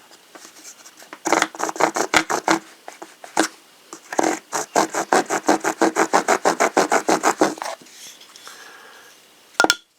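The serrated blade of a cheap multi-tool drawn rapidly back and forth across a piece of scrap wood, rasping in two quick runs of strokes, about seven a second; the blade doesn't feel very sharp. A single sharp click comes near the end.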